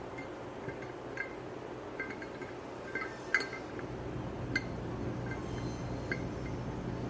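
Metal parts of an old Columbian bench vise clinking and tapping together as they are handled and fitted: about ten light, ringing clinks scattered through, the loudest two about three and a half and four and a half seconds in, over a steady low hum.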